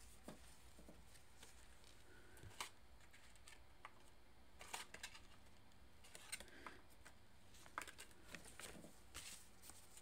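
Faint rustles and small clicks of a tarot card being handled and set into a spread of cards, scattered through an otherwise near-silent stretch.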